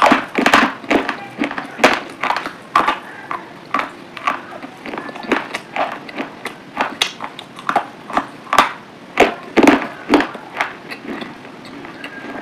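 Pomegranate arils being chewed close to the microphone: irregular crunches and juicy pops, a few each second.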